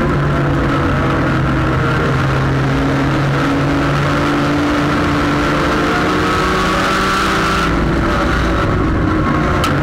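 Front-wheel-drive sport compact race car's engine running steadily under load, loud inside the cockpit over road and wind noise.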